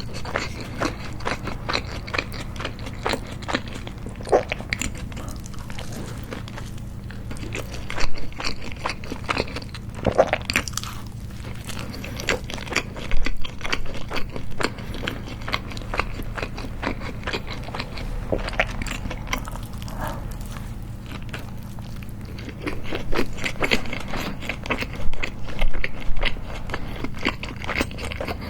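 Close-miked biting and chewing of a homemade hamburger, with crunchy bites into a toaster-crisped bun and wet chewing between them. The louder bites come about 8, 10 and 13 seconds in and in a cluster near the end, over a faint steady low hum.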